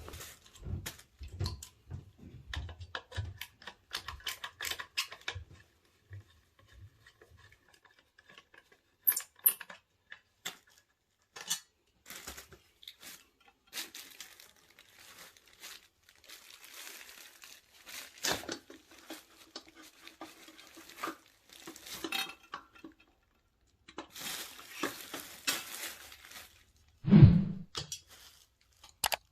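Hand tools and boiler parts being handled during a repair: a run of small metallic clicks, taps and clinks, with stretches of rustling and scraping. A single dull thump near the end is the loudest sound.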